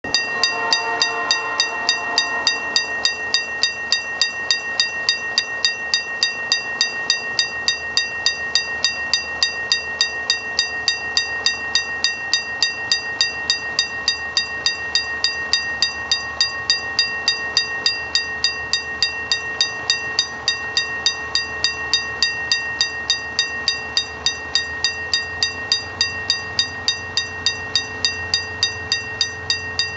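Railway level-crossing warning bell ringing in quick, even strokes, about three a second, as a locomotive approaches. The locomotive's horn sounds briefly at the start, and its engine rumble grows near the end.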